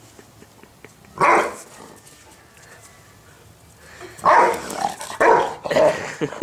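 Dog barking in play: one bark about a second in, then a quick run of several more barks over the last two seconds.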